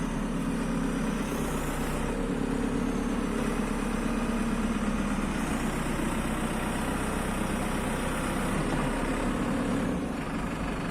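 JCB 3CX Super backhoe loader's four-cylinder diesel engine running steadily at a low, even speed, with a slight drop in level near the end.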